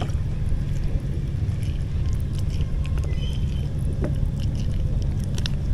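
A low steady rumble with a few faint clicks.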